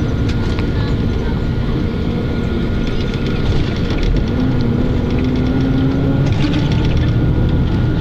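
Running noise inside a moving vehicle: a steady low rumble with rattles and clicks from the body, and a humming tone that rises slowly from about four seconds in.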